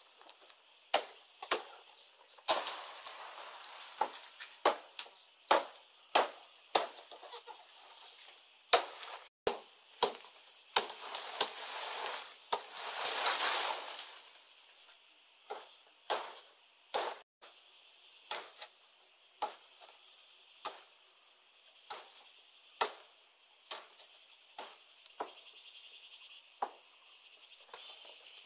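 Palm frond stalks being chopped with a blade: sharp strikes about once a second. Two longer spells of leaves rustling, the louder one near the middle.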